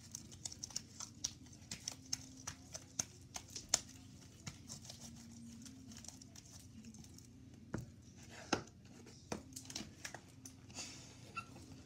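Wet, stringy homemade slime being stretched and squeezed by hand in a plastic tub: irregular sticky clicks and pops, with a few louder knocks about eight to nine and a half seconds in. A steady low hum runs underneath.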